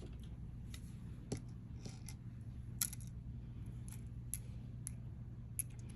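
Small metal and glass jewelry beads clicking and clinking together as they are handled and sorted, in scattered light taps, over a faint steady low hum.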